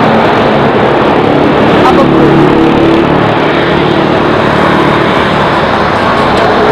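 Steady outdoor road-traffic noise from passing vehicles, with faint voices mixed in.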